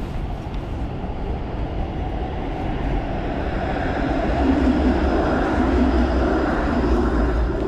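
A streetcar passing by, its sound building up over a few seconds and loudest near the end.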